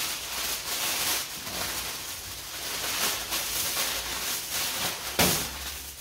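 Aluminium foil crinkling and rustling as it is pressed and folded by hand around a wrapped piece of meat, with many small crackles and one sharper, louder crackle about five seconds in.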